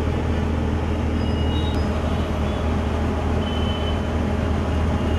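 Steady street traffic noise: a continuous low rumble of engines, with a few faint short high tones.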